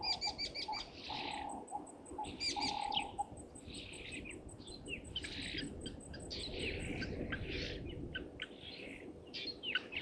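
A flock of Burchell's starlings calling, a steady run of short chattering calls and quick rising and falling whistled notes. Another bird gives short, lower repeated notes over the first three seconds, and a faint, fast, even high ticking runs underneath.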